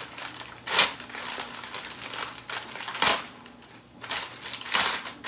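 A brown paper shipping bag being torn open and rummaged through, making crinkling, ripping rustles in several short bursts. The loudest come about a second in and about three seconds in, with more near the end.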